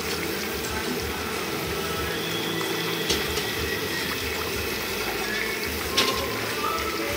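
Water running or pouring steadily, with two sharp clicks, about three seconds in and again about six seconds in.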